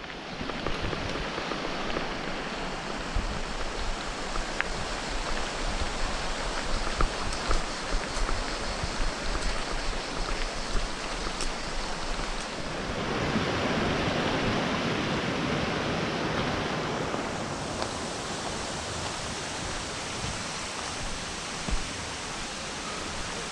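Steady rush of a mountain stream. For the first half the rumble and small clicks of mountain bike tyres rolling on a gravel track run under it. The water swells louder about halfway through.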